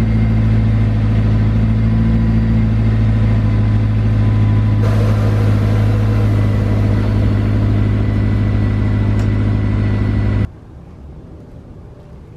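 Honda S2000's four-cylinder engine idling with a steady low note while the car's power soft top closes. The sound cuts off suddenly about ten and a half seconds in, leaving quieter outdoor ambience.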